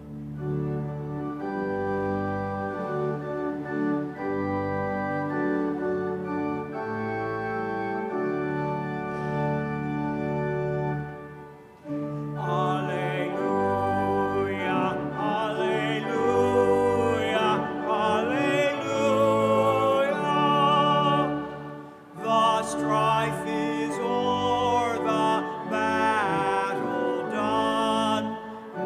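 Church organ playing an entrance hymn: held chords for the introduction, then singing joins about twelve seconds in, with a short break between verses near the end.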